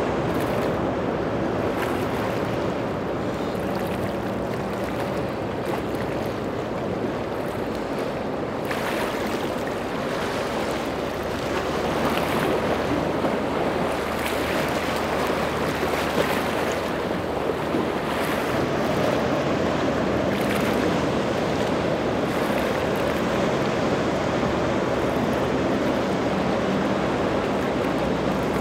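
Inlet waves and surf washing, with wind on the microphone and a faint steady hum of boat engines under it. A few sharper splashes come through in the middle.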